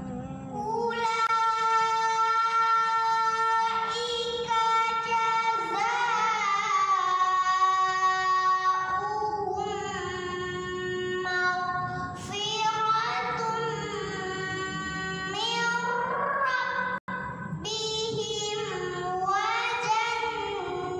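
A single voice chanting Quran recitation in melodic tilawah style: long held, wavering, ornamented notes in phrases separated by short breaths.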